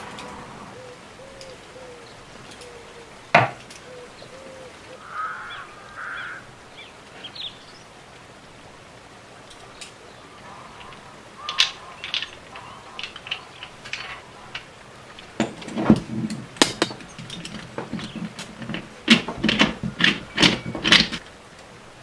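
Hands handling copper tubing and metal clamp parts: one sharp knock about three seconds in, then a run of short clicks, taps and metal-on-metal knocks in the second half as the clamp pieces are fitted together.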